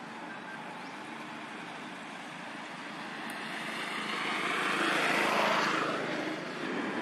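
A passing engine: steady motor noise that swells to its loudest about five seconds in, then drops away.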